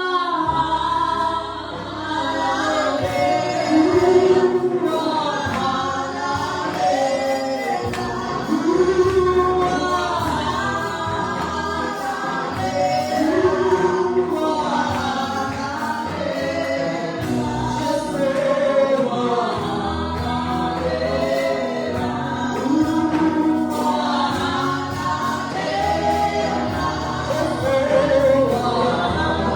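Congregation or choir singing a gospel worship song, with a steady low bass accompaniment beneath the voices.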